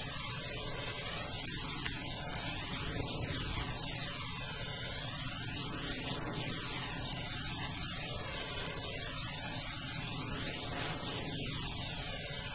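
Steady hiss with a low hum underneath, evenly loud throughout, with a swirling, sweeping colour that rises and falls every second or two.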